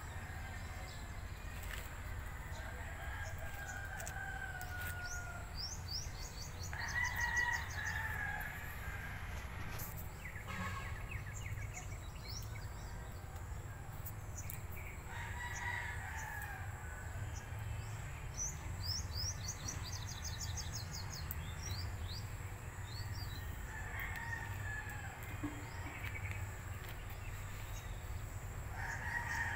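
A rooster crowing several times in the background, each crow lasting a second or two and falling in pitch. Small birds chirp in quick high trills between the crows, over a steady low rumble.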